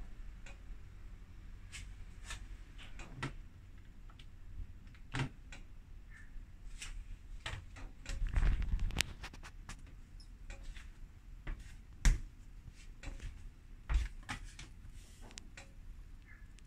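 Handling noises of bread dough being divided and weighed: scattered light clicks and taps as pieces are set on and lifted off a small digital kitchen scale and put down on the countertop, a louder stretch of dull handling noise about halfway through, and a few sharp knocks later on.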